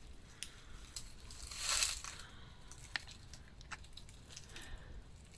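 Footsteps crunching on dry, gravelly ground, with one louder crunch about one and a half seconds in and scattered light clicks around it.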